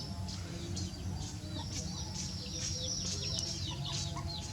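Small birds chirping: a busy run of short, high, falling chirps, thickest from about a second and a half in, over a steady low hum.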